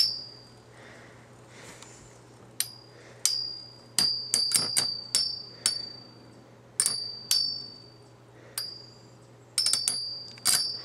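Two Metal Fusion Beyblade spinning tops clashing as they spin in a plastic stadium: more than a dozen sharp metallic clinks, each with a brief high ring, coming irregularly and often several in quick succession.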